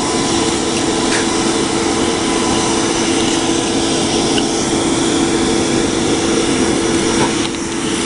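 Air blower forcing air into a bloomery iron furnace, running steadily: a constant rush of air with a steady hum.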